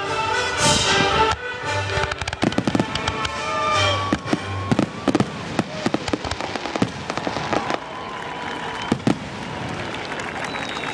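Fireworks going off in rapid bangs and crackles, with music playing under them that fades out about halfway through.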